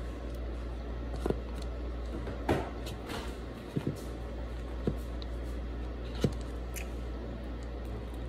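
A few light clicks and knocks at irregular intervals over a steady low hum.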